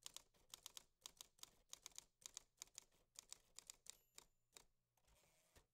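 Faint typewriter keystrokes clacking in quick, irregular runs, the sound effect for on-screen text typing itself out; the keystrokes thin out near the end.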